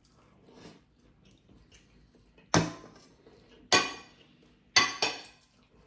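Forks clinking against plates during a meal: four short, sharp clinks with a brief metallic ring in the second half, two of them close together near the end.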